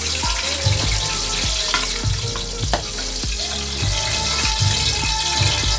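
Milkfish pieces sizzling in hot oil in a wok. A metal spatula scrapes and taps against the pan a few times as the fried fish is lifted out.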